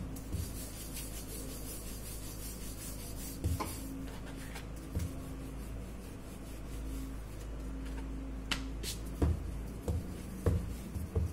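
Wooden rolling pin rolling dough thin on a rolling board: a steady rubbing sound, with a few sharp knocks, more of them near the end.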